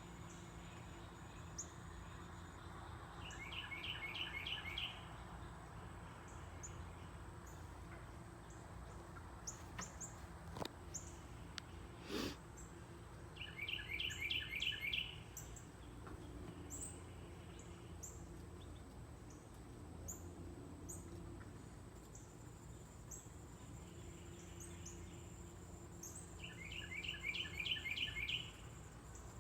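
A songbird singing the same short, fast run of notes three times, roughly every ten to twelve seconds, against a low outdoor background with faint high chips. A single sharp click about twelve seconds in.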